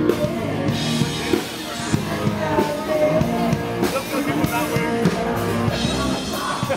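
Rock music with a drum kit beat and singing.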